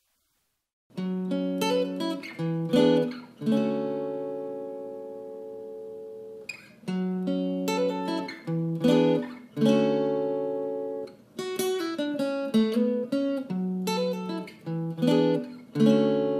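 Background music of acoustic guitar chords, strummed in a repeating pattern and left to ring, starting about a second in.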